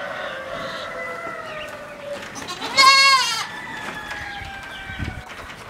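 Goats bleating: long, drawn-out bleats, with one loud bleat about three seconds in that rises and falls in pitch.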